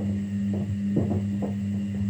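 Kunft washing machine running mid-cycle: a steady motor hum with irregular soft thuds, several a second, as the drum turns.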